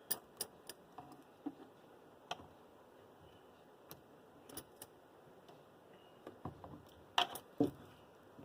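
Scattered small clicks and taps of the cleaned water-inlet filter and mesh being fitted back into the washing machine's inlet connection, with two louder knocks about seven seconds in.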